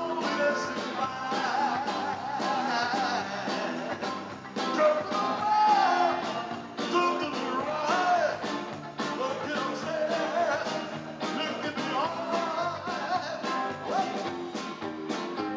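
Live rock band playing: a male singer over electric guitars, bass guitar and drums with a steady beat.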